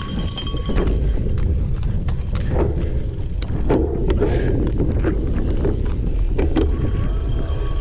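Wind rushing over an on-bike camera's microphone during a cyclocross race, with the bike's irregular clattering knocks as it rattles over rough ground.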